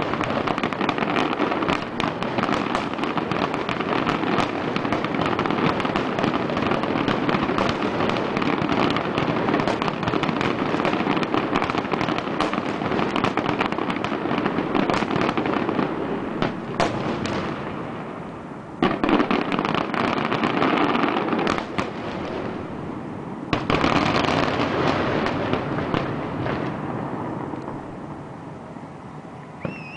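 Fireworks finale: a dense, continuous barrage of bursting shells and crackle that eases off about 17 seconds in, then two more short volleys break out before it fades away near the end.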